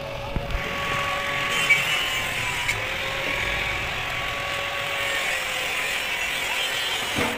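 Stick (shielded metal arc) welding arc crackling and sizzling steadily as a bead is run along a sheet-steel tank seam, with a faint steady hum underneath.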